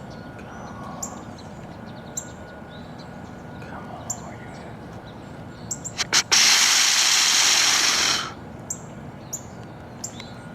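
Snort-wheeze deer call: a few quick sharp snorts followed by a drawn-out, hissing wheeze of about two seconds, starting about six seconds in. It imitates a rutting buck's aggressive challenge. Faint bird chirps repeat behind it.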